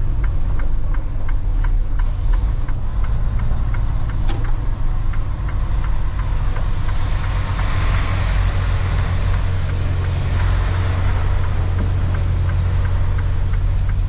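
Semi truck's diesel engine running at low speed, heard from inside the cab, with a light regular ticking about three times a second that fades out in the middle and returns near the end. A single sharp click about four seconds in, and a hiss that swells and fades in the middle.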